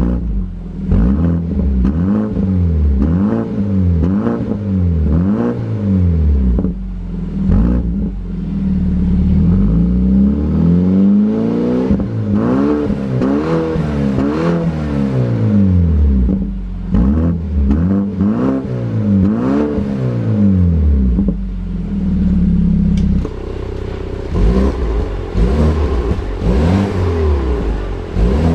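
BMW 428i's turbocharged four-cylinder engine blipped again and again through an aftermarket valved dual exhaust, each rev rising and falling in pitch with idle between. The exhaust valves are open in sport mode. About three-quarters of the way through the sound turns quieter, and the revving goes on with the valves shut in comfort mode.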